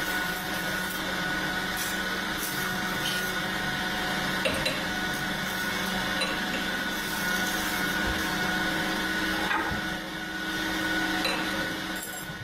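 Metal-spinning lathe running with a steady whine while a lever spinning tool forms a sheet-metal blank over the mandrel, with a few short knocks.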